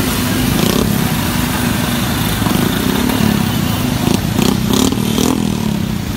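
Motorcycle engine running, a steady pulsing rumble, with a few short sharp sounds in the second half.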